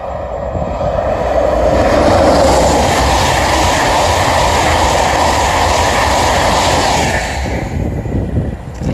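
High-speed express passenger train passing at speed: a loud rushing wash of wheel and air noise that builds over the first two seconds, holds, and falls away after about seven seconds as the last coaches go by.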